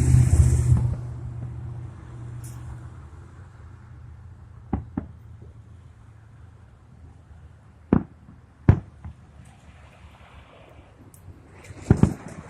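Fireworks going off: a loud boom at the start that rumbles away over a couple of seconds, then single sharp bangs, a pair a little before halfway, two more a few seconds later, and a quick cluster near the end.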